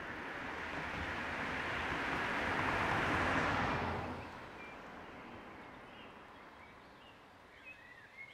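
A motor vehicle driving past, its noise rising to a peak and falling away about four seconds in. Birds chirp faintly near the end.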